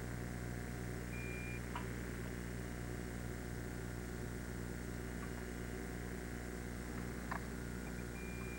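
Steady low hum made of a stack of even tones, the running noise of a camcorder recording onto tape. A short high steady tone sounds about a second in and again near the end, and there are two faint soft clicks, one about two seconds in and one near the end.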